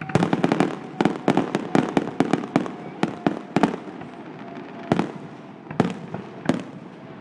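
Fireworks display, aerial shells bursting: a rapid string of sharp bangs for the first few seconds, then three single bangs spaced about a second apart.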